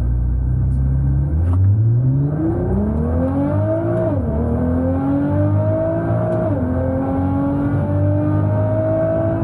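Nissan GT-R's twin-turbo V6 under full-throttle acceleration on a datalog run. The revs climb steeply from about a second in, drop sharply with an upshift about four seconds in and again a couple of seconds later, then climb once more toward the end.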